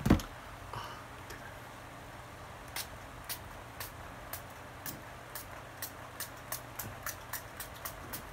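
A thump near the start, then a pump-mist setting spray bottle spritzed over and over, short hissing puffs about two a second, speeding up slightly.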